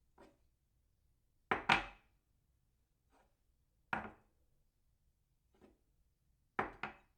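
A cup set down on a saucer again and again: sharp clinks, twice as a quick double clink, with fainter taps between.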